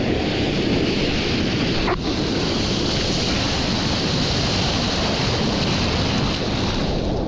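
Heavy ocean surf breaking and rushing, heard close up from in the water, with wind buffeting the microphone. There is a brief dip about two seconds in.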